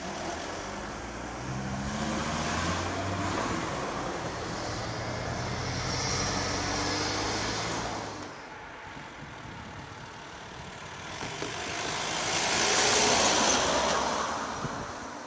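Road traffic moving off over a railway level crossing as the barriers lift: a vehicle engine running and pulling away, with tyre noise. It drops off suddenly about eight seconds in; near the end a rushing swell rises and fades.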